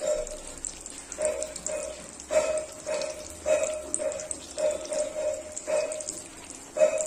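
Oil sizzling and bubbling around eggplant slices frying in a wok, with a short, pitched squeak-like sound repeating about every half second, louder than the sizzle.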